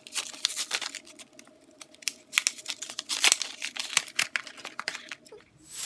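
A plastic pen packet being torn open and crinkled by hand: a dense, irregular run of crackles and rips, loudest around the middle, ending in a short swish as the packaging is pulled apart.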